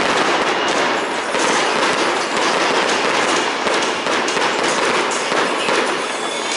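Aerial fireworks bursting in quick succession: a steady, dense crackle of many overlapping reports, with no single bang standing out.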